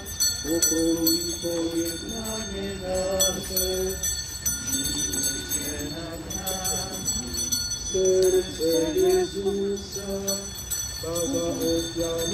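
Small hand bells jingling continuously over a crowd of people singing a hymn in slow, held notes.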